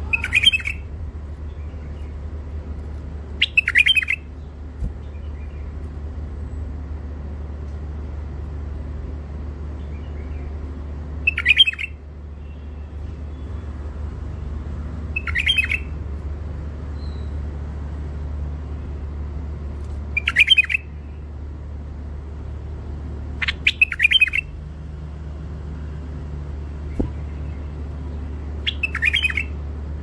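White-eared bulbul giving short, sharp song phrases, about seven brief bursts a few seconds apart, over a steady low hum.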